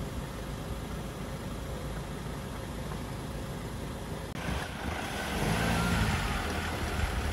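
Land Rover Defender's engine running while the truck sits bogged in a sandy rut. About four seconds in the sound breaks off briefly, then comes back louder as the engine works to pull the truck out of the bog.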